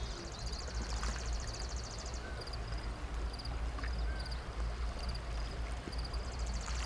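Outdoor ambience: a steady low rumble of wind on the microphone, with faint high chirps repeating about twice a second and a rapid high trill near the start and again near the end.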